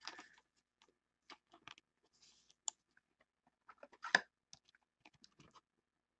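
Faint, scattered ticks and rustles of a trading card being handled between the fingers, with a sharper click about four seconds in.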